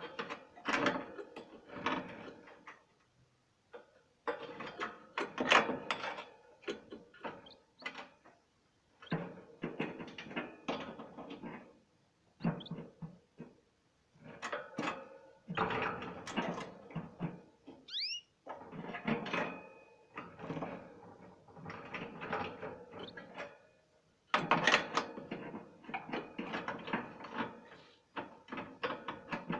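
Canaries bathing: repeated bursts of wing-fluttering and splashing in a small water dish, each lasting a second or two with short pauses between. A single short chirp a little past the middle.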